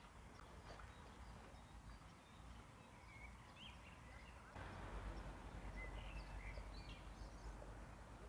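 Faint outdoor ambience: a low rumble that gets louder about halfway through, with a few faint, short bird chirps a few seconds in and again later.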